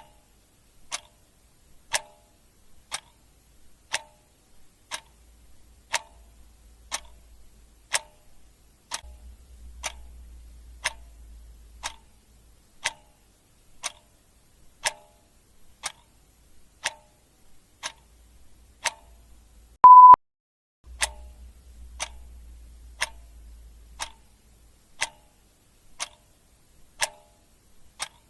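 Clock ticking steadily, about one tick a second, alternating tick and tock. About twenty seconds in, a short, loud beep at a single pitch sounds once over the ticking.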